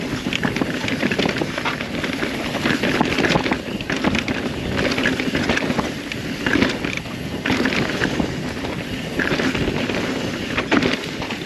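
A Rocky Mountain Altitude mountain bike descending a rough downhill trail at speed: tyres rumbling over dirt and rock, with frequent irregular rattles and knocks from the chain and frame over bumps. Wind buffets the microphone throughout.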